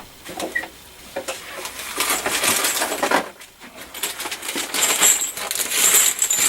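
Empty .45 brass cartridge cases clinking and rattling against each other as they are picked through by hand, in two bouts of rattling.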